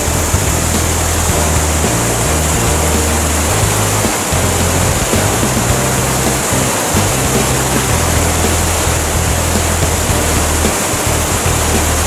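Rushing water of Fukiware Falls, a wide, low waterfall: a steady, loud roar, under background music with slow low bass notes that change every second or two.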